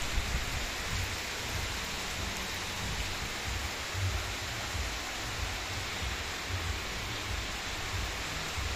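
Heavy rain falling steadily: a dense, even hiss with irregular low rumbles underneath.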